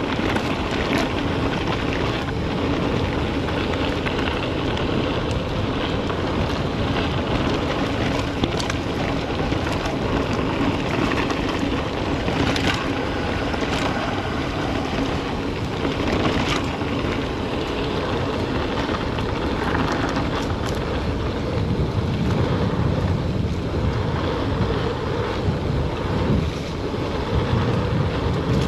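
Wind rushing over the microphone of a mountain biker's camera during a ride, over a steady low rumble, with scattered sharp clicks and rattles from the bike.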